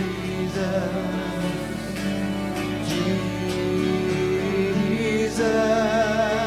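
Worship band playing a slow instrumental passage: acoustic guitar strumming with a violin holding long notes, one of them wavering with vibrato near the end.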